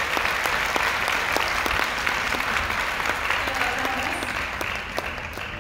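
Audience applauding: many hands clapping in a dense, steady patter that fades toward the end.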